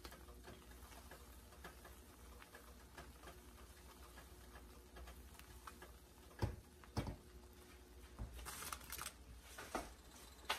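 Pot of chicken broth boiling with dumplings in it: a faint, steady run of small bubbling pops. Two louder knocks come a little past the middle, and a short rustling noise follows.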